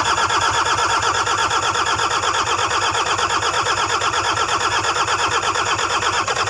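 The wrecked Toyota Hilux's diesel engine cranking over on its starter, a steady rhythmic churn that keeps going without catching.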